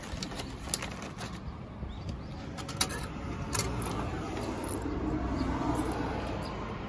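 Clear plastic egg carton crackling and clicking as it is handled and set down, with a low rushing noise that swells in the second half and then fades.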